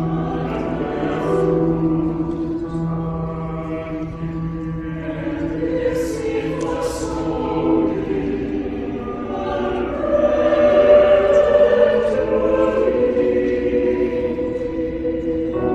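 Mixed church choir singing a slow choral anthem in sustained chords, with hissing 's' consonants about six and seven seconds in and a swell to louder singing around ten seconds in.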